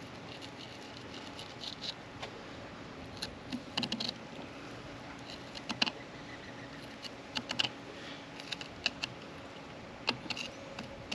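Scattered light clicks and scrapes of a fillet knife cutting a yellow jack on a fillet table.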